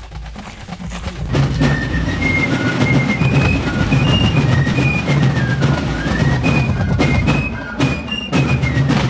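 Fife and drum corps playing a march: a shrill, quick fife melody comes in about a second and a half in, over steady drumming.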